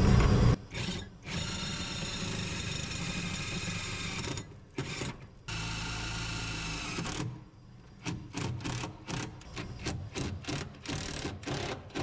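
Cordless drill driving self-drilling screws through a steel DIN rail into a sheet-metal cabinet panel. A loud, low run cuts off half a second in, then the motor runs steadily twice, for about three seconds and then about two, while the screws bore into the steel. It ends in a rapid string of short bursts as the screws are seated.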